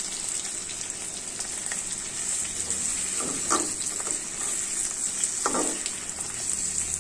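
Leaf-wrapped hilsa fish parcels sizzling steadily in a little hot oil in a steel karahi. A metal spatula scrapes against the pan a few times as the parcels are turned over.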